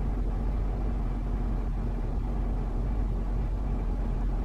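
Steady low rumble and hum inside a car's cabin, with no distinct events.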